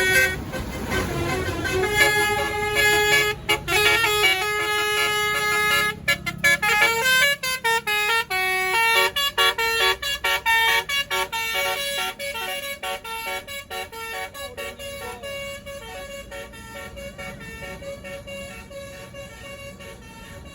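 Indonesian tour bus's multi-tone telolet basuri horn playing a melody of stepped notes, quick repeated notes from about six seconds in, with the bus's engine running underneath. The tune fades steadily over the second half.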